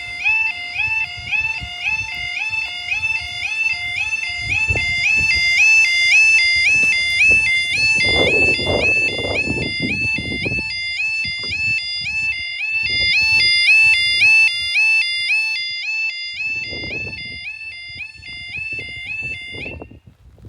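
Level crossing yodel alarm sounding a fast, evenly repeating two-note warble, loud in daytime mode at night. It cuts off shortly before the end.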